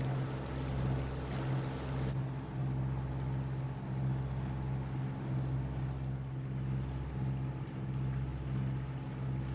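A Leopard 45 catamaran's diesel engine running steadily while motoring under way, a low even drone with no change in speed.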